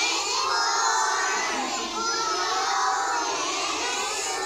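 A group of preschool children singing a song together.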